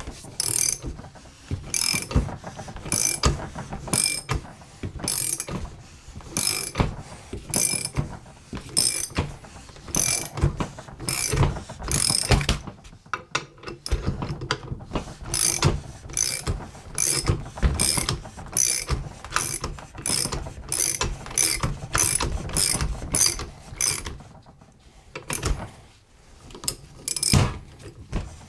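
Ratchet wrench clicking in a steady run of strokes, with a couple of short pauses, as it turns the forcing screw of a bushing removal tool that presses a bushing out of a power steering rack-and-pinion housing.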